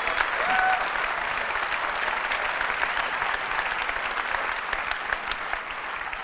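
Large auditorium audience applauding, a dense steady clapping that slowly fades toward the end.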